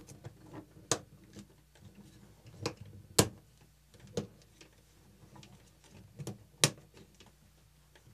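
Irregular small plastic clicks and snaps, several in a row a second or so apart, the loudest about three seconds in and near the end, as a plastic tension clip is worked onto a FROLI spring element and pressed into place.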